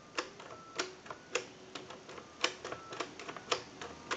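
Keypad buttons of a Mickey Mouse novelty telephone pressed one after another, each press a sharp click with a short faint tone in between, about one press every half second: the repaired phone's touch-tone keypad being dialed digit by digit as a test.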